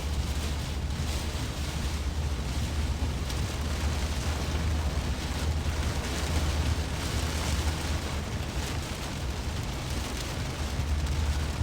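Steady low rumble and hiss of a car driving at highway speed, heard from inside the cabin.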